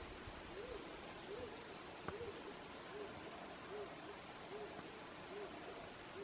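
A soft, low hooting call repeated about every 0.8 seconds, each note rising and falling in pitch, over quiet countryside background, with a faint click about two seconds in.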